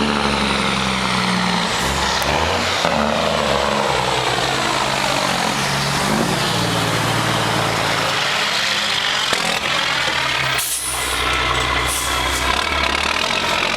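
Straight-piped diesel engine of a Mack Granite truck running loud, its pitch stepping up and down several times as the truck moves. A short hiss comes about ten and a half seconds in.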